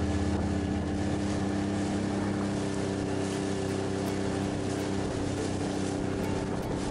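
Outboard motor of a small fibreglass fishing boat running steadily under way, over a constant rush of wind and water.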